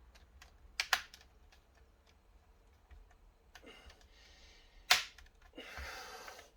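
Sharp plastic clicks and knocks from a laptop's screen casing being handled and fitted back together, two of them loud, about a second in and about five seconds in, with a brief rustling scrape about six seconds in.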